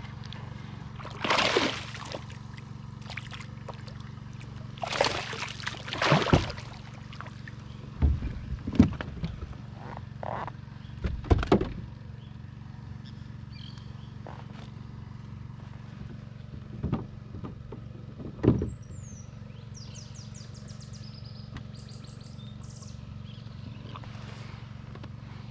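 A hooked peacock bass splashing at the surface beside a kayak in several loud bursts during the first seven seconds, then sharp knocks and thumps as it is netted and flops in the kayak. A steady low hum runs underneath.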